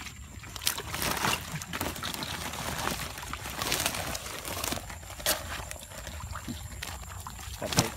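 Woven plastic sack of freshly caught fish being handled: irregular crinkling and rustling, with a few sharper clicks.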